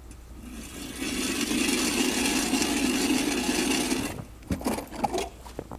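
Hand ice auger drilling through lake ice about 8–10 cm thick: the blades scrape steadily for about three and a half seconds, then stop suddenly, followed by a few knocks and clicks.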